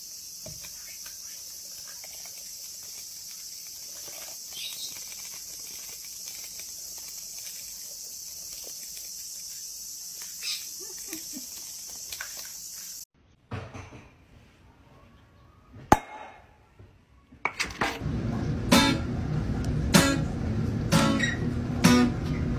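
Light taps and clatter of a clear plastic tub being knocked about by a parrot, over a steady hiss. After a short quieter stretch with a single sharp knock, acoustic guitar strumming starts near the end.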